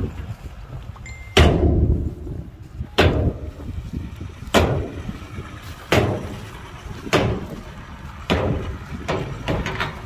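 A series of heavy bangs, about one every second and a half, each followed by a short low rumble, over a steady low rumble.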